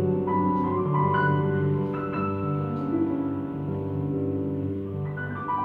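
Grand piano played live in a slow piece: single melody notes over sustained low notes, with a new chord struck near the end.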